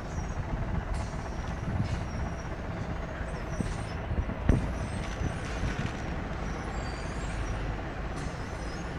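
Steady rumble of road and engine noise from a vehicle driving on a wet road, with a bus passing close alongside. There is a single thump about four and a half seconds in.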